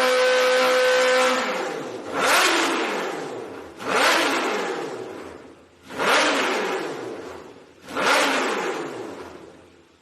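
Kawasaki H2 motorcycle with a Vandemon full-system exhaust being revved. It holds a steady high rev for about a second and lets it fall, then gives four sharp throttle blips about two seconds apart, each rising quickly and dying back slowly.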